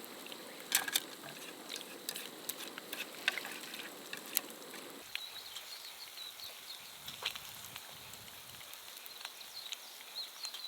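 Oil frying in a pan, sizzling with a scatter of crackles. About five seconds in it cuts off abruptly, giving way to a quieter background with a faint steady high tone and occasional clicks.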